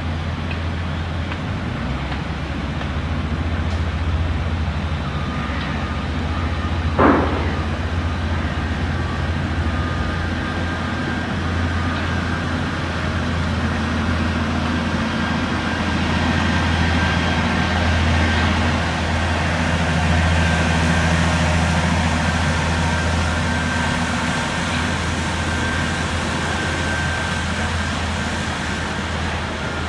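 Steady low rumble of heavy engines from road-building machinery and traffic, with a faint high whine running through much of it. One short, sharp knock about seven seconds in.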